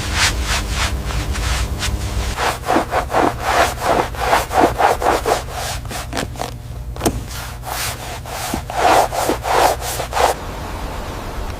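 Hand sanding: quick back-and-forth rubbing strokes, about three a second, with a short pause a little past halfway. The strokes stop about a second before the end.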